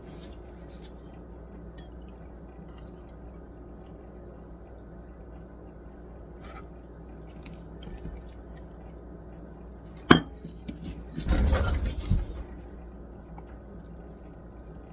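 Mixing bowl and utensil handling while buttermilk goes into biscuit dough: a few faint ticks, a sharp clink about ten seconds in, then a brief louder clatter, over a steady low hum.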